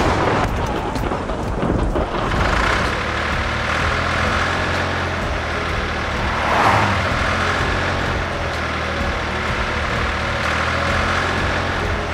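Heavy vehicle engine sound effect running steadily with a low drone, swelling briefly about six and a half seconds in.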